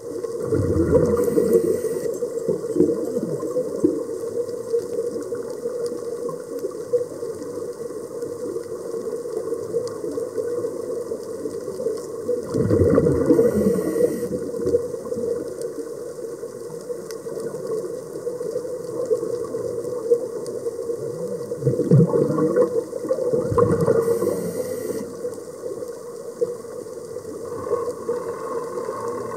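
Underwater recording of scuba breathing through a regulator: a short hiss on each inhale and a rumbling gurgle of exhaled bubbles, three times about ten to eleven seconds apart, over a steady hum.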